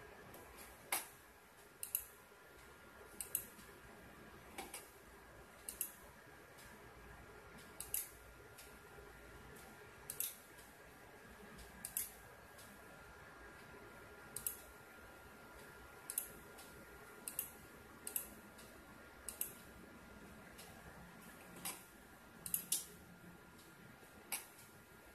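Sharp, short clicks at irregular intervals, one every one to two seconds, over a faint steady background with thin steady tones.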